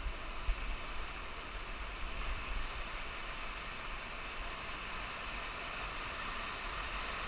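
Steady rush of a fast whitewater river's current running around an inflatable raft, with a low rumble underneath.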